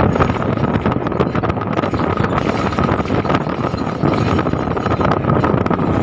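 Wind buffeting the microphone of a moving vehicle, over the steady running noise of the vehicle and its tyres on the road.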